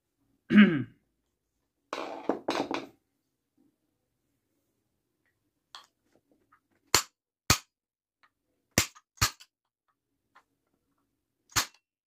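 Five sharp hammer blows on the armature shaft of a vacuum cleaner motor, driving the shaft out through its centre, in two close pairs and then a single blow. Near the start there is a loud short sound falling in pitch, then some handling noise.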